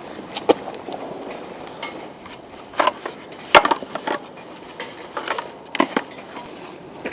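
Irregular sharp knocks and clacks of hard objects on a concrete floor, about eight in a few seconds, some in quick pairs.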